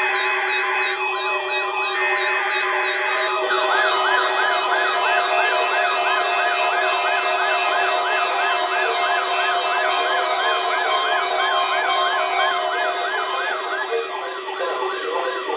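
Several electronic warbling alarm sirens sounding at once at different pitches, each rising and falling about three times a second over a steady tone. A louder warble joins about three and a half seconds in, and the higher warble drops out briefly near the end.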